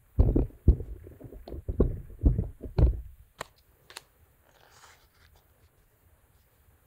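A quick run of knocks and thumps from items being set down and shifted on a lab bench, followed by two sharp clicks about half a second apart. The items are a petri dish of lemon juice concentrate, a paper label and a pH colour chart.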